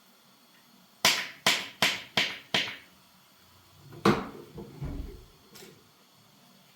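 Five sharp knocks in quick even succession, about three a second, then a heavier single bang a moment later trailing into a short low rumble.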